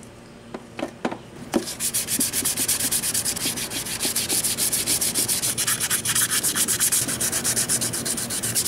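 Dry hand sanding of a plastic AE86 taillight lens with 220-grit sandpaper on a sanding block, to take down the raised lettering: a few light knocks as the lens is handled, then from about a second and a half in, fast, steady back-and-forth scraping strokes, about five or six a second.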